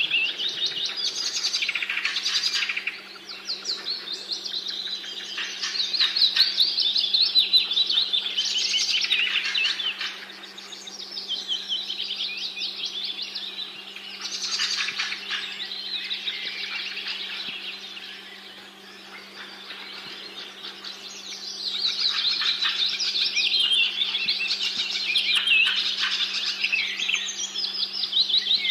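Birdsong: rapid trilling and chirping phrases that come in waves with short lulls between them, over a faint steady low hum.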